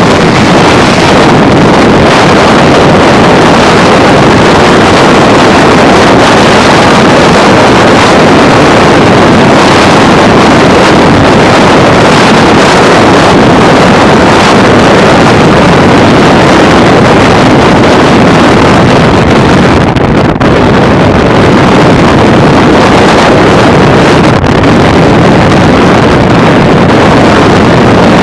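Car driving at freeway speed: a loud, steady rush of wind and road noise on the camera's microphone.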